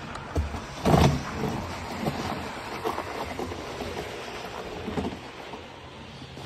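Riese & Müller Load 75 cargo bike's tyres rolling and crunching over gravel, with a loud bump about a second in and smaller jolts after.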